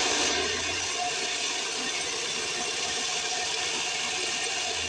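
Black & Decker variable-speed saber saw, mounted upside down as a die filer, running steadily with a motor whine and the rattle of its mechanism as it drives a diamond file blade up and down.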